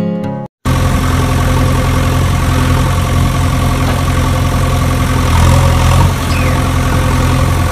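Steady idling engine sound effect for a toy excavator, starting after a brief silence about half a second in.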